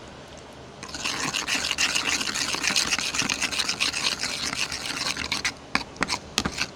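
Spoon stirring and scraping briskly in a bowl of powder detergent mixed with water, a dense rapid scraping for about four and a half seconds, then a few separate clicks near the end.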